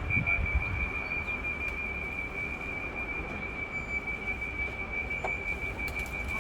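Door warning on a Class 379 electric train giving a single high-pitched tone, held steady without a break: an unusual, continuous door sound rather than the normal beeps.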